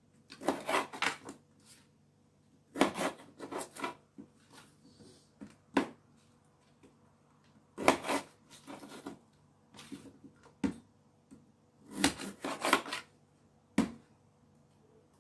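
A knife cutting raw potatoes on a serving tray used in place of a chopping board. There are short runs of clicks and knocks every couple of seconds as the blade goes through the potato and strikes the tray.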